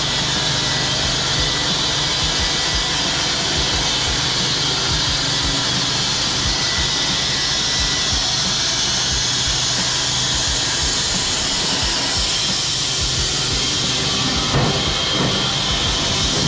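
Steady machinery noise with a strong hiss and a low hum underneath, and a single knock near the end.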